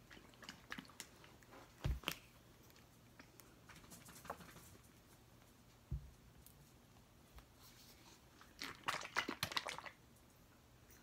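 Scattered light clicks and knocks with dull thumps about two and six seconds in, then a crackly burst of crunching lasting about a second, some nine seconds in.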